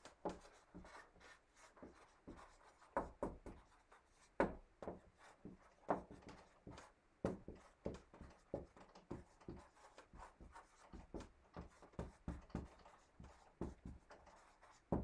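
Dry-erase marker writing on a whiteboard: faint, irregular short strokes and taps as words are written.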